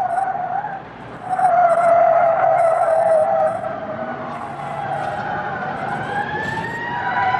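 Car tyres screeching in two long squeals, then a police siren climbing in pitch near the end.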